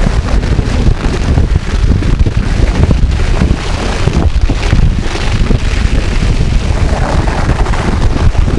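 Heavy wind buffeting on the microphone of a moving ride camera, a steady low rumbling roar with constant flutter.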